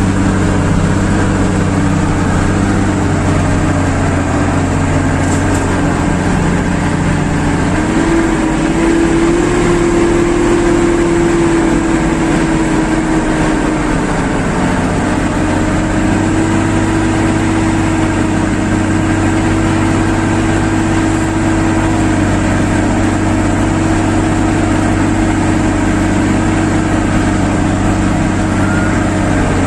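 Farm tractor engine running steadily while hauling a loaded peanut trailer. The note shifts for several seconds about a third of the way in, then settles back.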